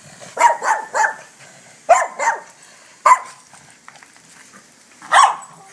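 Boston Terrier barking in play at lawn sprinklers, in short groups: three quick barks, then a pair, then a single bark, and one more near the end.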